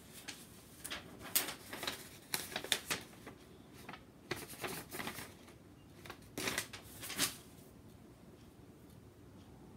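A folded paper letter rustling and crinkling as it is handled, in a string of short bursts from about a second in until just past seven seconds.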